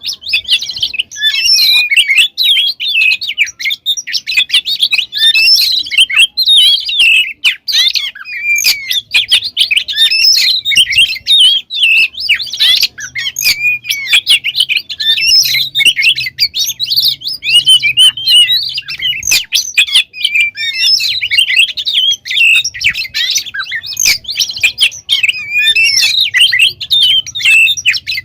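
Oriental magpie-robin (kacer) singing without pause, a fast stream of varied whistled and chattering notes.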